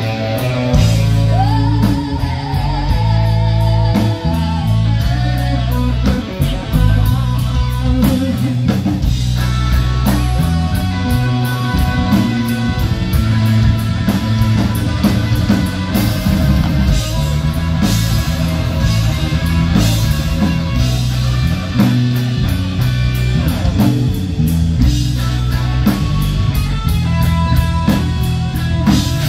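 Rock band playing: guitar over bass and drum kit, continuous and loud.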